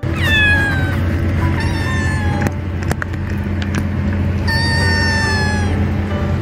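Kitten meowing three times: high-pitched meows that each fall in pitch, the third, a little past halfway, the longest.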